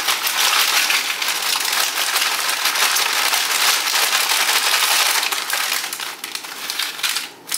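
Flamin Hot Doritos tortilla chips poured out of a crinkling snack bag onto a plate: a dense crackle of the bag and chips tumbling and clattering, easing off near the end.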